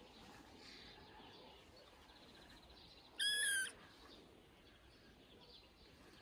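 A young kitten gives a single high, clear meow about half a second long, a little over three seconds in.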